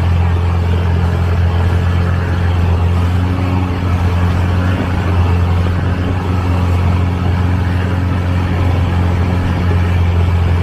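Long-tail boat's automotive engine running at a steady speed while under way: an even, low drone that holds throughout, over a steady hiss.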